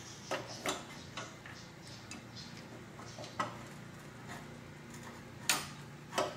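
Bosch distributor's metal body clicking and knocking against the VW engine's crankcase as it is worked into its port, not yet seated: a few light taps, then two louder knocks near the end.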